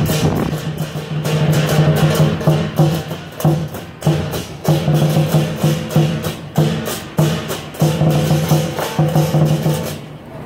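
Lion dance percussion, a Chinese drum with cymbals crashing, beating a fast, driving rhythm. It stops about ten seconds in.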